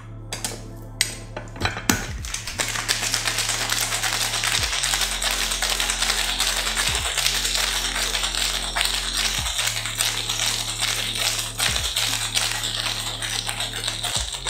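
Cocktail shaker full of ice shaken hard: a dense, very rapid rattle of ice against the shaker that starts about two seconds in, after a few separate clinks. Background music with a steady low bass line plays underneath.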